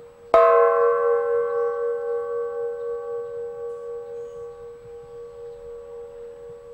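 A bell struck once with a long wooden pole about a third of a second in, then ringing on in several overlapping tones with a slow wavering beat as it gradually fades.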